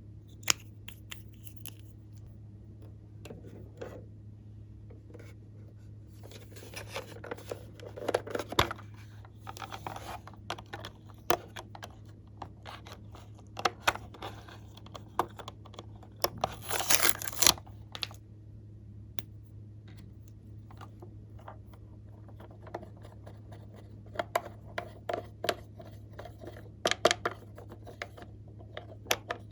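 Glossy slime being worked by hand: scattered sticky clicks and pops, in clusters, with a longer scratchy rustle about 17 seconds in. A steady low hum runs underneath.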